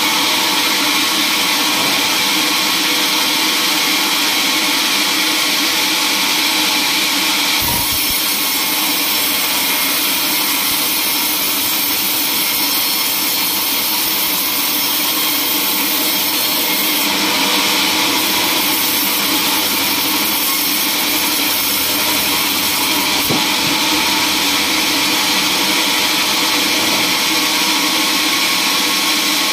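Band sawmill running, its blade cutting through a teak log: a steady whine with several tones over a strong hiss. The hiss brightens about eight seconds in and again later, each time with a brief knock.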